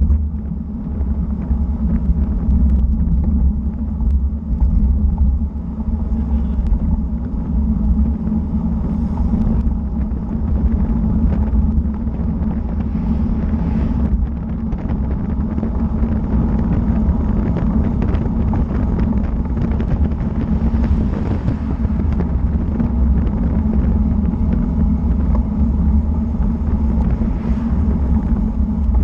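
Steady low rumble of wind and road noise on a road bike's GoPro microphone, riding at about 45 km/h.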